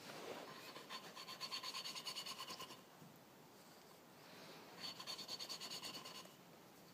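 A valve being lapped into its seat on a Volvo Penta MD2010 diesel cylinder head: a hand-spun lapping stick twists it back and forth on fine grinding paste. This gives a faint, rapidly pulsing gritty rasp in two bursts of about two seconds each, with a thin high-pitched edge as metal grinds on metal.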